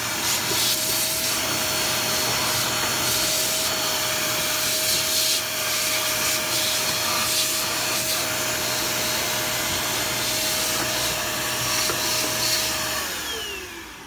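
JK-2 electric vacuum cleaner running with a steady whine, its round brush tip rubbing over the plastic washing-machine tub. Near the end the motor is switched off and the whine falls in pitch as it spins down.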